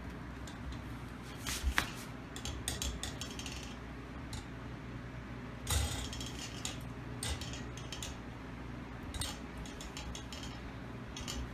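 Irregular clicks, rattles and rustling scrapes of artificial palm tree parts being handled and fitted together, in several short clusters, over a low steady hum.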